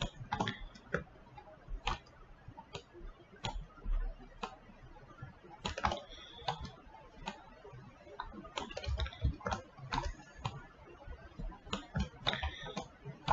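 Irregular clicks of a computer mouse and keyboard, a few dozen short, sharp clicks spaced unevenly, some in quick clusters.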